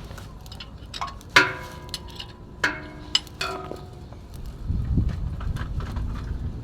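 Metal tools or parts clinking and ringing, with two sharper strikes about a second apart, then a low rumble building near the end.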